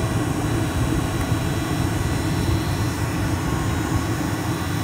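Steady rush of air with a faint motor whine from the retrofit electric A/C blower fan in a Land Rover Defender, blowing through a centre dash vent.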